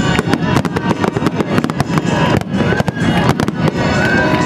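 Fireworks display in a dense barrage: firework bangs and crackles many times a second without a break, with music playing alongside.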